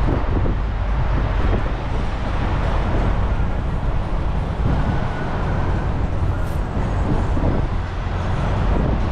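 Steady city road traffic noise with a continuous low rumble, as heard riding a sightseeing bus.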